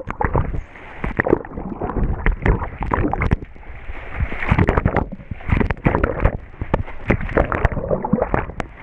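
Pool water churning, bubbling and splashing as swimmers thrash close by, heard muffled from underwater in an irregular jumble of gurgles and sloshes.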